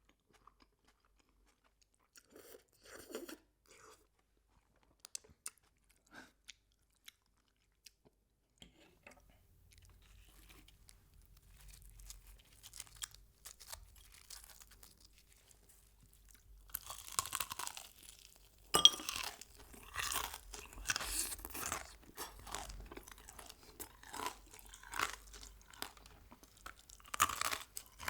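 Close-miked eating: a few small mouth clicks at first, then, from about halfway, crunchy bites and chewing of crispy fried chicken, with one sharp, loud crunch about two-thirds of the way in.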